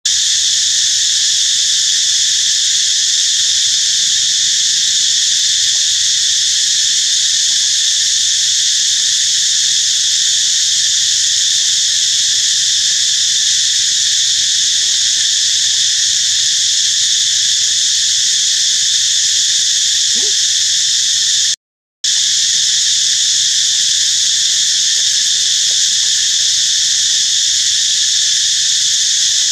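Loud, steady, high-pitched drone of an insect chorus in the forest, unbroken except for a split-second gap about two-thirds of the way through.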